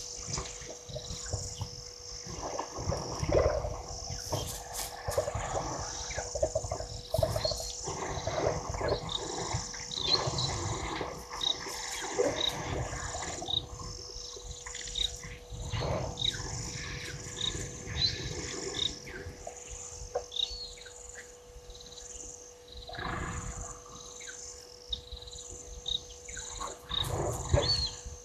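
African elephant herd moving through bushes at the water's edge, with low rumbles and rustling that come and go. A bird chirps repeatedly in the middle, over a steady buzz of insects.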